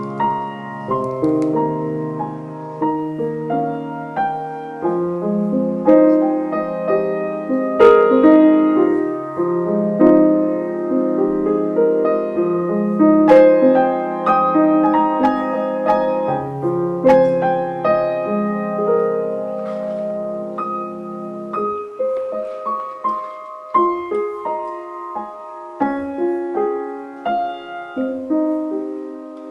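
Solo piano background music: a steady run of notes over held bass notes.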